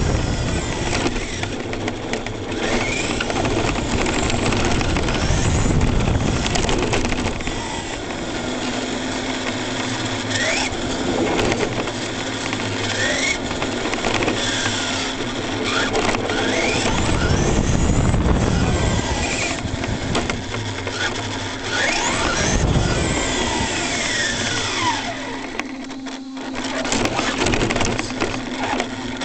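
Brushless electric motor of an ECX Torment RC short-course truck whining up and down in pitch as it speeds up and slows, over rushing tyre noise on asphalt, heard from a camera on the truck's roof.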